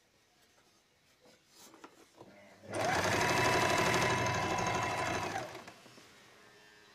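Electric sewing machine stitching fabric: it starts about a third of the way in with a brief rising whine, runs steadily for about three seconds, then slows and stops. Soft fabric-handling noises come before it.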